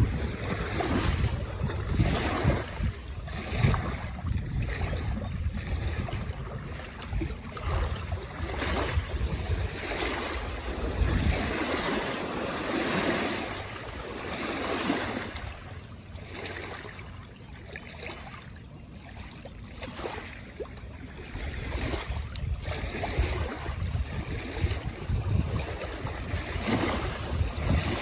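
Lake waves washing onto the shore in a gusty wind. Wind buffets the microphone with a low rumble through the first part and again near the end.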